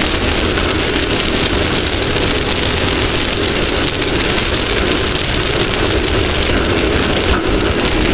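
Off-road race vehicle driving at speed over desert terrain: engine running steadily under a loud, even rush of wind and dirt-and-gravel road noise on a front-mounted camera.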